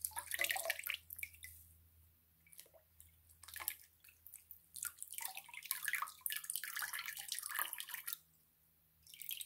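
Water dripping and trickling from a soaked fleece cloth squeezed over a metal basin of water, splashing into it in several spells with short pauses between them.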